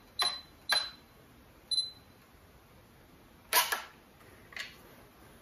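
Sony A58 SLT camera taking a photo: three short clicks in the first two seconds, each with a brief high beep, as it focuses, then the shutter fires with a louder double click about three and a half seconds in, followed by a faint click a second later.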